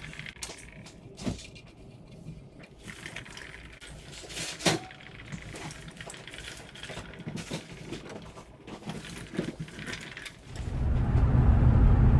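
A few scattered clicks and knocks, then about ten seconds in the loud, steady low rumble of the 2002 Ford F-150 driving off begins. This is the test drive after new front hub bearings were fitted, with no grind to be heard.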